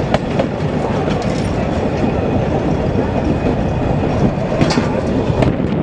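A narrow-gauge railway carriage running along the track: a steady rumble of wheels on rail with a few sharp clicks over the rail joints.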